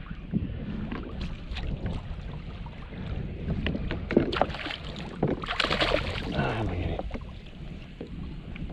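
Wind rumbling on the microphone aboard a kayak, with scattered knocks, clicks and water sounds, and a louder rush of noise, like a splash, a little past halfway through.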